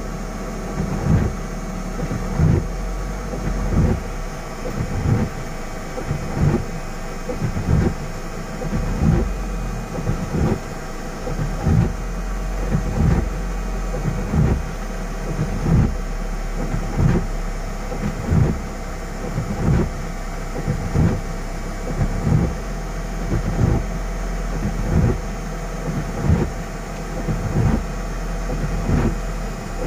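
Windscreen wipers knocking in a steady rhythm, roughly once a second, over a vehicle's idling engine hum and rain on the glass.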